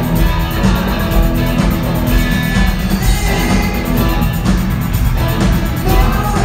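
Live rock band playing loudly, electric guitars over a steady beat.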